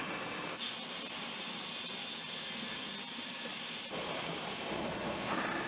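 Drill press running as it drills steel: a steady mechanical whir and hiss, changing abruptly about half a second in and again about four seconds in.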